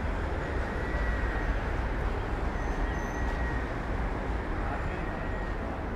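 Steady city ambience: a constant low rumble of traffic noise.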